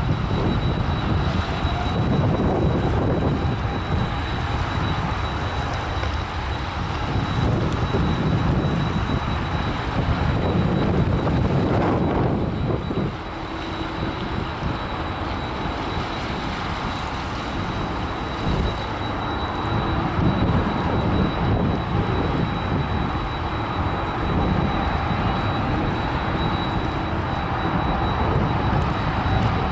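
Twin GE90 turbofan engines of a Boeing 777-300ER running at takeoff power as the airliner rolls down the runway, a steady low rumble that eases briefly about halfway through.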